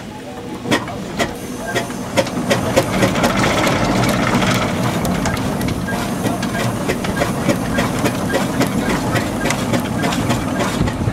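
Fowler steam ploughing engine at work: a steady hiss of steam with mechanical running noise and many sharp, irregular clicks and knocks, growing louder about two seconds in.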